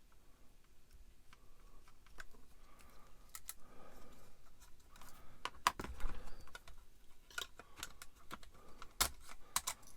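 Small plastic model-kit parts being handled, with scattered light clicks and taps as pieces are set down and fitted together, a few sharper clicks in the second half.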